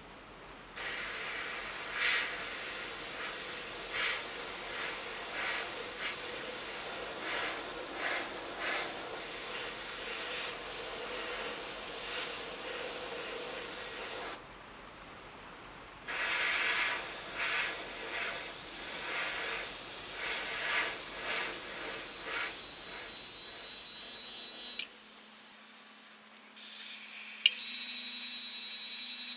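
Airbrush spraying paint: a steady hiss of air in two long passes with a short break between, its level rising and falling slightly as the trigger is worked. Near the end the hiss stops and a steady tonal hum takes over.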